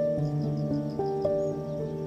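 Background music: a gentle melody of held notes stepping from one pitch to the next over a sustained low bass note.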